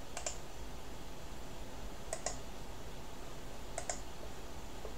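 Computer mouse button clicked three times, each click a quick press-and-release pair, over a faint steady low background hum.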